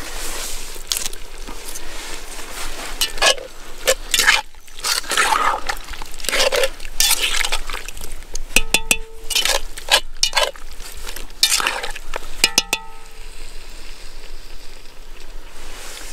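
A utensil stirring and scraping food in a cast iron Dutch oven, with two short runs of ringing metallic clinks against the pot in the second half, then a quieter steady hiss.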